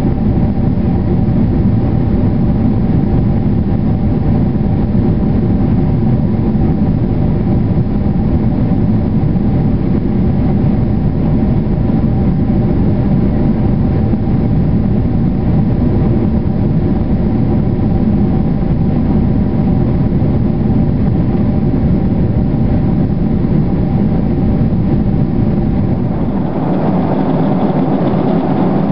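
Cabin noise of a Boeing 767 in flight, heard from a window seat by the wing: a steady roar of jet engines and airflow with a hum of several steady tones. Near the end the sound shifts to a lighter roar with less deep rumble.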